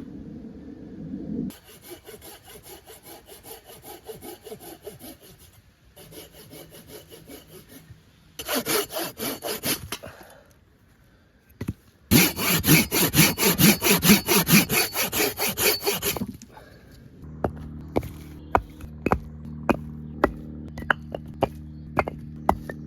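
A hand saw cutting through wood in several bouts of rhythmic back-and-forth strokes. The loudest bout, in the middle, runs at about four strokes a second. In the last few seconds it gives way to a series of separate sharp knocks.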